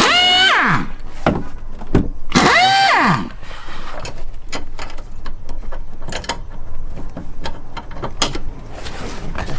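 Small electric power-tool motor whirring briefly and winding down, falling in pitch, twice about two and a half seconds apart, followed by scattered clicks and knocks of tools and metal parts.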